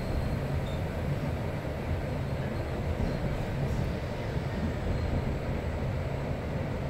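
Passenger train running, heard from inside the carriage: a steady low rumble.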